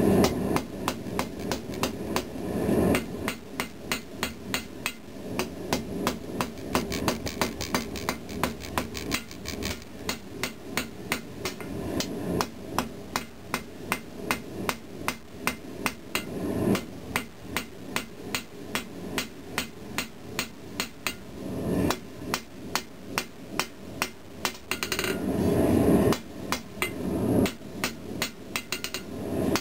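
Ball-peen hammer striking a hot pattern-welded steel blade on an anvil in steady repeated blows, about two a second, each with a short metallic ring: the blade being forged to shape.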